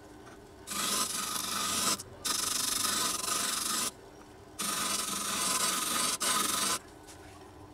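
Small disc sander running, with the end of a wooden stick pressed three times against the spinning sandpaper disc, each a hissing rasp lasting a second or two. Between the passes only the machine's faint steady hum is left.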